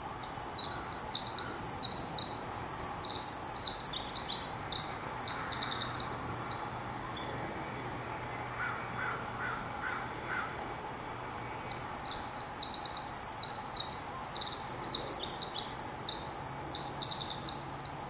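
Pacific wren singing: two long songs of rapid, high-pitched notes, each lasting about seven seconds, the second starting about halfway through. A few faint, lower notes from another bird sound in the pause between them.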